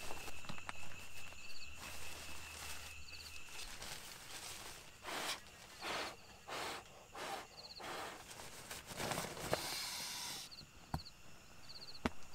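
Nylon shell of a synthetic sleeping bag rustling and swishing as it is pulled out and spread in a tent doorway, in several short swishes and one longer one, with a couple of sharp clicks near the end. Faint insect chirps come in short regular trills about once a second.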